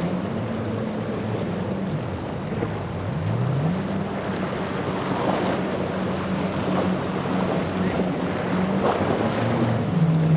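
Mercury outboard engines of fast boats running at speed, ending on a triple Mercury 450R rig. A steady engine note rises in pitch about three seconds in, over hull spray and wind noise on the microphone.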